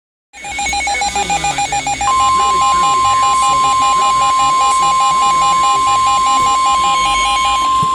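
Emergency alert tones for a severe thunderstorm warning. A rapidly pulsing beep, about six or seven a second, starts just after the opening. About two seconds in it is joined by a steady, unbroken alarm tone of the kind NOAA Weather Radio sounds before a warning, which holds to the end.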